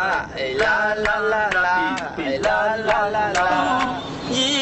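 Singing in held, wavering notes, kept in time by sharp taps or claps about twice a second.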